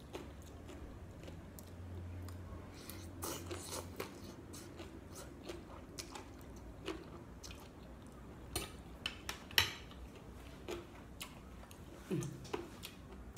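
Close-up sounds of someone chewing a mouthful of spicy glass noodle salad with boneless chicken feet, wet mouth sounds with scattered short clicks, and a fork now and then clicking on the plate.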